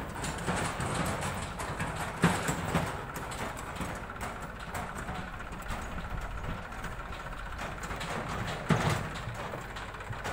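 Diesel engines of a farm tractor and a JCB backhoe loader idling with a steady low rumble. Two sharp knocks break through, about two seconds in and again near the end.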